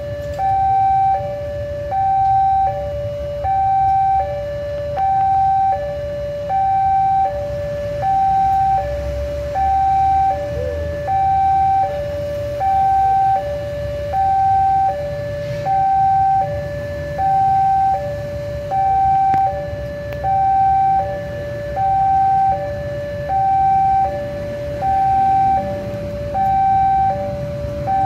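Electronic two-tone level-crossing alarm, alternating a higher and a lower tone, each held about half a second, repeating steadily: the warning that a train is approaching the crossing. A low rumble of waiting road traffic runs underneath.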